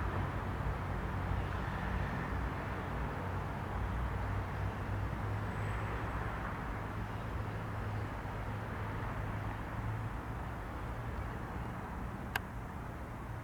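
Boeing 737-800's CFM56-7B jet engines heard as a steady rushing noise over a low hum, easing slowly in level, with a single sharp click near the end.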